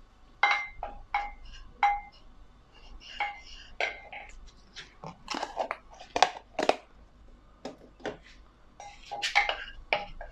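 Wooden spoon knocking and scraping against the inside of a pot as fat is stirred in it. The knocks come irregularly, a dozen or more, and the strongest ones make the pot ring briefly.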